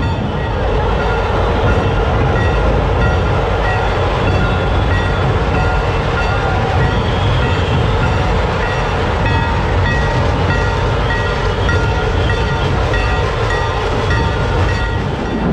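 Dhol-tasha troupe playing: many large dhol barrel drums beaten together in a loud, continuous, dense rolling rhythm.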